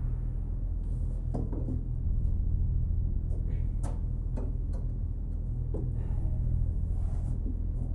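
A steady low hum of room and recording noise, with a handful of light clicks and knocks scattered through it as someone moves at a table.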